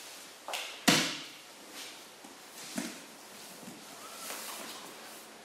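Grapplers' bodies thudding onto a foam training mat during a scramble: a sharp thud about a second in, a smaller one just before it, and a lighter one near three seconds in, followed by faint shuffling on the mat.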